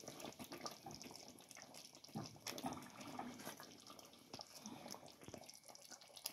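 Faint wet sloshing and bubbling of a thick chicken curry gravy simmering in a pot as a silicone spatula stirs it, with scattered soft clicks.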